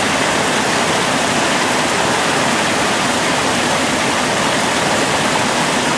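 Steady rush of flowing water in a mountain stream, an even hiss with no change.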